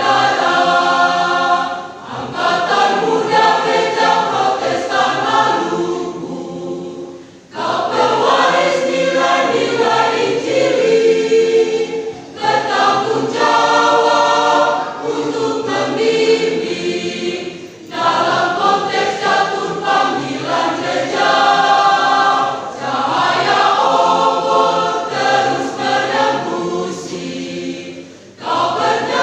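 Church choir singing a sacred song, voices together in sustained sung phrases, with short breaks between phrases about seven seconds in and near the end.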